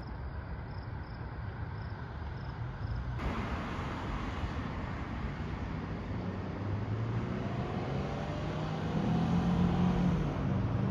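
An approaching passenger train's low rumble and locomotive engine hum, growing steadily louder, with the deep hum strengthening over the last few seconds.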